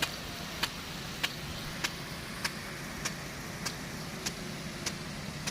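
Sime Hidra big gun sprinkler running, its drive arm clicking at an even pace of about one click every 0.6 s, over a steady rush and a low drone.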